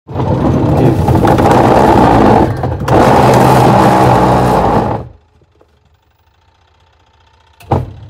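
Twin-tub washing machine's wash pulsator running with a loud, rough grinding noise ("grog grog") while a hand presses down on it, dipping briefly about two and a half seconds in and cutting off about five seconds in; a single thump near the end. The rough noise is the sign of a fault the repairer places in the gearbox.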